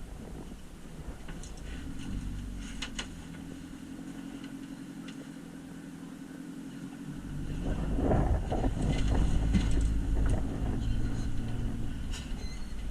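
A motor vehicle's engine running steadily, growing louder and heavier about seven seconds in, with scattered rattles and clicks.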